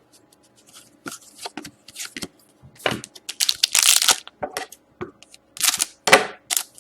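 Crinkling and tearing of a hockey card pack wrapper being handled and opened, in irregular bursts that grow louder from about halfway through.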